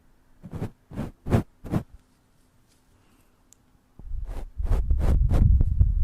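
Brushes swept across a microphone: four quick strokes in the first two seconds, a pause, then dense scrubbing from about four seconds in, heavy with low rumble.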